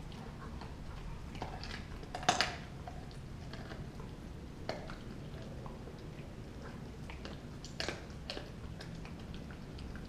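Dog gnawing on a frozen raw pig's foot: scattered sharp crunches and cracks of teeth on hard frozen bone, the loudest a couple of seconds in and another near eight seconds.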